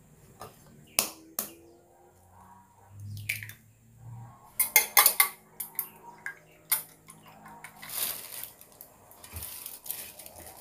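A metal spoon beating egg in a small stainless steel bowl, making quick clinks and scrapes against the metal. There are two sharp knocks about a second in, and the loudest run of clinks comes about halfway through.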